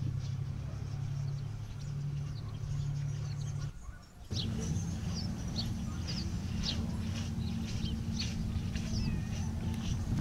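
Small birds chirping in many short high calls over a steady low rumble. The sound drops out briefly about four seconds in, and the chirps come thick after that.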